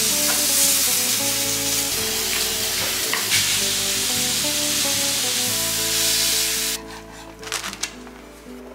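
Meat frying in a hot pan, a steady loud sizzle over background music with a simple melody. The sizzle cuts off abruptly about seven seconds in, leaving the music and a few light clicks.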